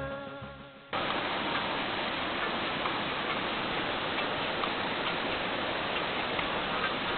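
A guitar-backed song fades out during the first second. Then, abruptly, a steady even hiss with faint scattered ticks sets in and runs on unchanged.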